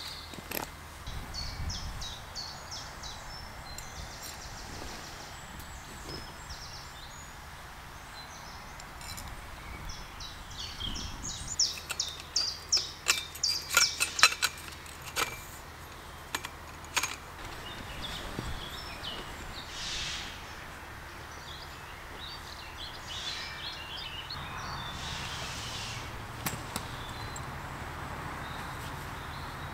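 Birds chirping over a steady outdoor background hiss. About halfway through comes a run of sharp clicks and knocks as a bell tent pole is handled.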